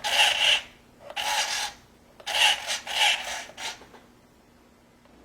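Short scraping rubs of plastic, about five in the first four seconds, as the plastic remote control is handled and its joysticks worked; then they stop.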